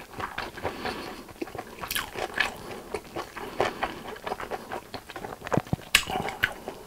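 Close-miked chewing of a last mouthful of japchae glass noodles, with wet mouth clicks and lip smacks coming at irregular intervals.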